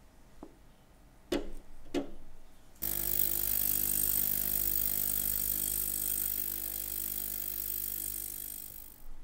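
Bandelin Sonorex ultrasonic cleaner: two sharp clicks, then the bath starts and runs with a loud, steady hiss over a low hum, cutting out near the end. It is cavitating around a beaker of acetic acid holding a watch case.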